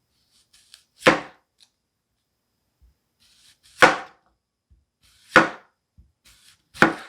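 Chef's knife slicing through an onion and knocking down onto the cutting board, four cuts spaced a second or two apart, each with a faint crisp crackle just before the knock.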